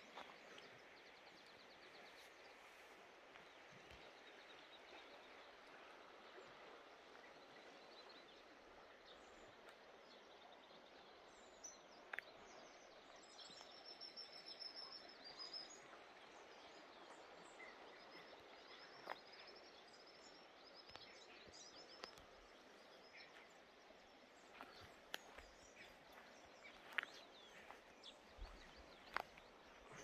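Faint, quiet forest ambience with a steady low hiss. Small birds chirp faintly in short repeated series around the middle, and a few sharp clicks and snaps come toward the end.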